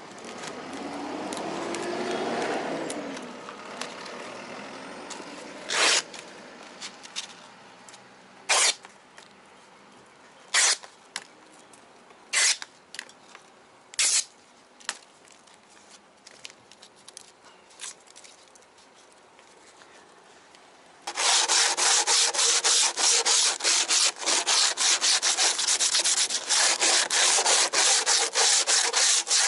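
A few short, sharp scrapes about two seconds apart as sheets of cloth-backed aluminium-oxide sandpaper are handled, then, about two-thirds in, rapid back-and-forth hand sanding of the hard cured epoxy on a fibreglass-reinforced boat hull, a dense run of scraping strokes.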